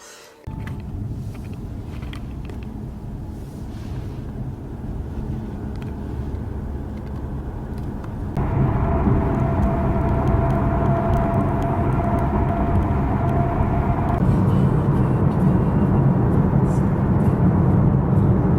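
A car driving, with steady engine and road noise that starts suddenly and gets louder about eight seconds in.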